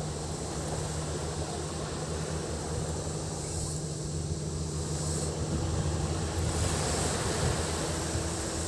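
Tropical sea surf washing onto the beach, with wind on the microphone and a steady high cicada drone above it; a low steady hum runs underneath.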